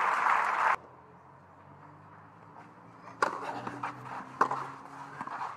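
Crowd applause that cuts off abruptly under a second in. After a short quiet, a tennis ball is struck by rackets in a rally: a sharp crack about three seconds in, lighter ticks, then a louder crack over a second later.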